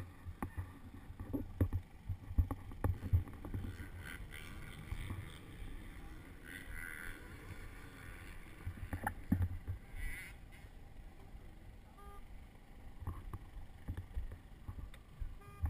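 Wind rumble and irregular knocks on a helmet-mounted camera, with a sharp knock at the start, a few clicks, and a faint far-off mechanical haze near the middle; no close engine is running.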